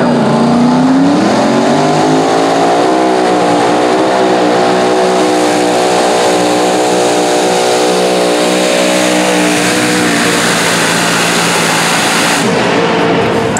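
Mini modified pulling tractor's supercharged engine revving up hard at the launch, then running at high, steady revs under load down the track, easing slightly near the end.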